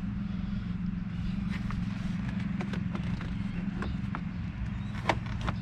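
Scattered light clicks and taps of the plastic dash trim and instrument cluster being handled and fitted, over a steady low hum.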